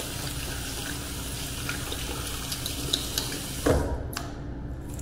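Tap water running from a faucet onto hands being washed in a sink. About three and a half seconds in, the water stops with a knock, leaving a few faint clicks.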